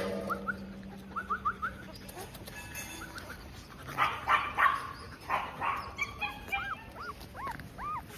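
Young nursing German Shepherd puppies whimpering and squeaking: scattered short high squeaks at first, then a run of louder, arching whimpers in the last few seconds.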